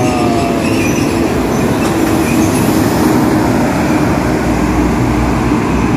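A large bus passing close by with loud, steady engine and road rumble. In the first second the tail of a multi-tone bus horn chord fades out, sliding down in pitch as it goes by.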